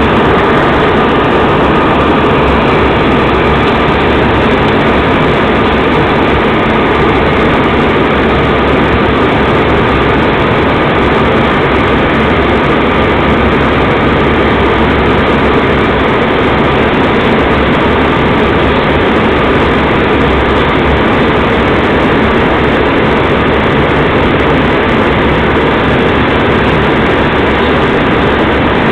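Loud, steady drone of an airliner's cabin in cruise flight: engine and rushing-air noise heard from a window seat, unchanging throughout.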